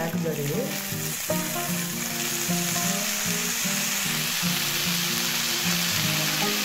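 Rice sizzling as it is poured into hot ghee with fried cashews and bay leaves for pulao; the sizzle builds about a second in and then holds steady. Background music plays under it.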